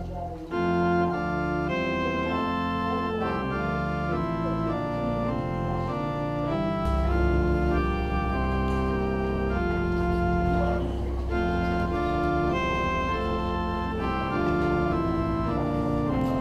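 Organ playing slow, sustained chords, with a deep bass pedal note held through the middle stretch.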